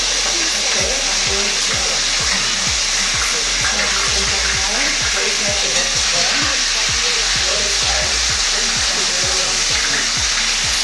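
Background music with a steady kick-drum beat, about three beats a second, over a continuous broad hiss.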